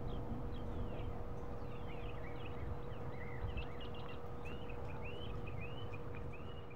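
Birds chirping and calling in short rising and falling notes, with a run of repeated arching chirps, about two a second, in the second half. Under them a steady low outdoor rumble and a faint steady mid-pitched hum.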